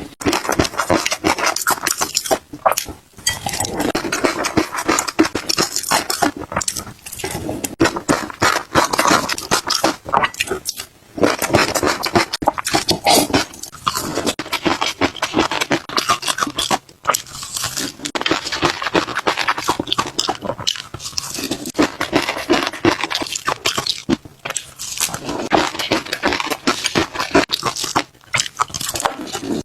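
Close-miked ASMR eating sounds: a person chewing and smacking mouthfuls of caviar, in runs of a few seconds broken by short pauses between bites.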